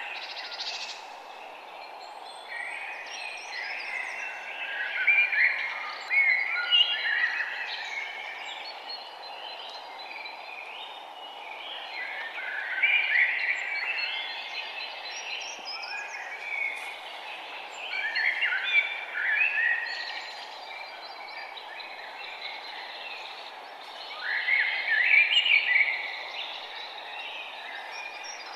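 Forest songbirds singing, with a song phrase of quick chirps coming about every six seconds over a steady background hiss.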